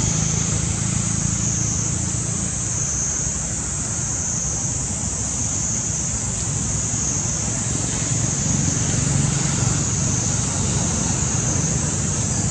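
Steady outdoor ambience: a constant high-pitched drone over a low, even rumble, with no distinct calls or knocks.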